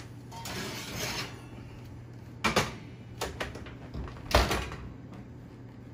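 A lidded stainless-steel pot is lifted out of the oven and set down on a gas range's grates: a brief rushing noise, then a few sharp metal knocks, the loudest about four and a half seconds in.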